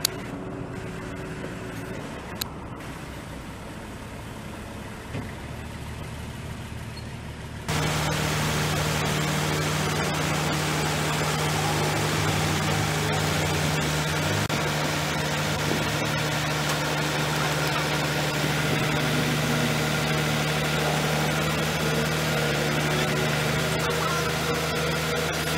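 Diesel engine of a truck-mounted hydraulic crane running at a steady speed while the crane lifts and swings a heavy load. The sound is quieter at first; from about eight seconds in it is louder and steadier, with a constant low hum.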